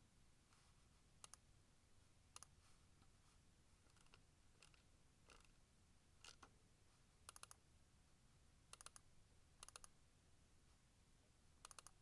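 Faint clicks of a computer mouse over a quiet background hiss: a few single clicks, then quick double-clicks in the second half, as folders in a file dialog are opened.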